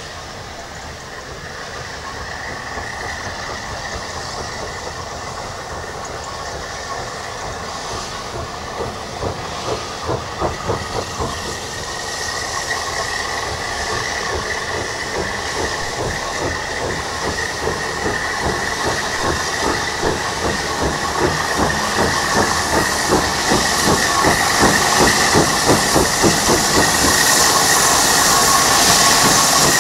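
LSWR T3 Class 563 steam locomotive working a train on the approach, its exhaust beating in a steady rhythm over a hiss of steam. It grows steadily louder as it nears.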